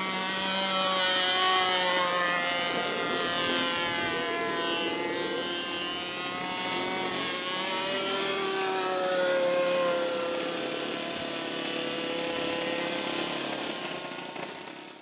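Saito 82 four-stroke glow engine of an RC model airplane running in flight, its pitch rising and falling as the plane manoeuvres and changes throttle. The sound fades out near the end.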